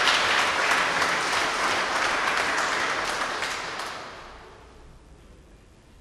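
Audience applauding, then dying away about four seconds in.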